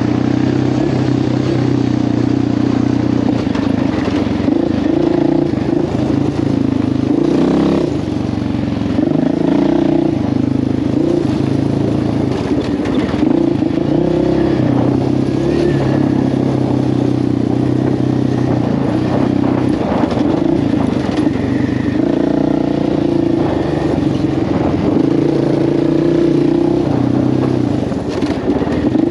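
Quad bike (ATV) engine running under throttle while riding, its engine note dipping and picking up again twice, about a quarter of the way in and again about three-quarters through.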